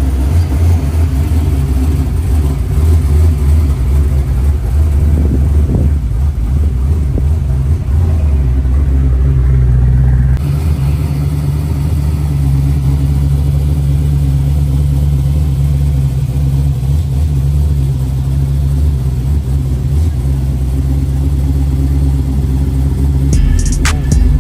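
Car driving under way: the steady low drone of a 1973 Chevy Caprice convertible's twin-turbo LS V8 engine with road noise. A quick run of sharp clicks comes near the end.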